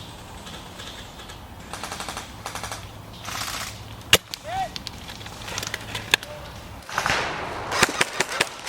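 Airsoft guns firing in rapid full-auto bursts, several short rattles of shots, with one sharp loud crack about four seconds in.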